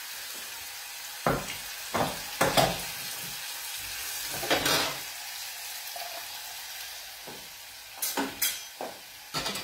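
Artichoke pieces sizzling steadily in hot oil in a frying pan, while a wooden spoon knocks and scrapes several times in a small saucepan. Near the end come a few sharper clatters as the saucepan is lifted off the gas hob's grate.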